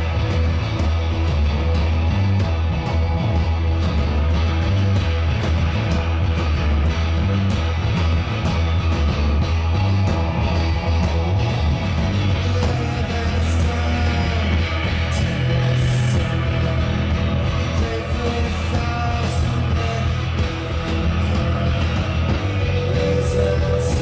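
Live rock band playing: distorted electric guitars, bass guitar and drums, with cymbal crashes in the second half.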